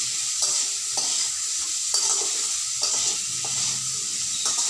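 Potato and ridge gourd pieces sizzling in hot oil in a metal kadai while a plastic spatula stirs them, with a scrape of the spatula against the pan roughly every second over the steady hiss of the frying.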